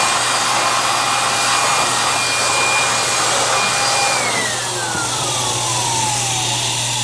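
Electric air blower running with a high whine, blowing dust out of a freezer's condenser coil; about four seconds in it is switched off and its motor winds down, the whine falling steadily in pitch. A steady low hum continues underneath.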